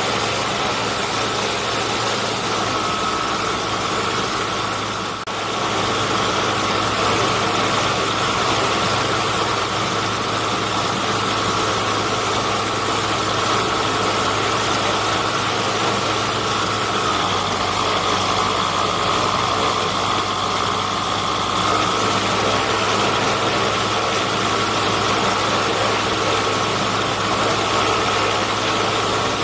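Engine and propeller of a Storch STOL light aircraft running steadily on the ground, heard close up from a camera on the airframe, with a brief dip in level about five seconds in.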